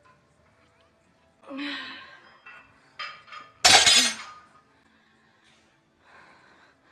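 A woman's strained grunt during a leg set taken to failure, then a loud, sharp crash about three and a half seconds in.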